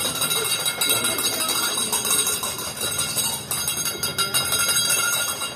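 Continuous bell-like metallic ringing and jingling, many high tones held over a busy clinking texture, with the metal sound of a parichamuttu kali sword-and-shield dance.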